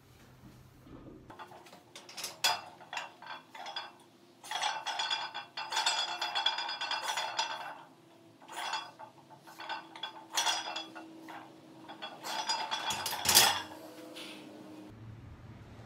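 Cast-iron weight plates clinking and rattling on a loaded barbell during a set of back squats, in clusters of sharp metallic hits with the densest clatter a few seconds in. Near the end comes one loud metal clang as the bar goes back onto the rack.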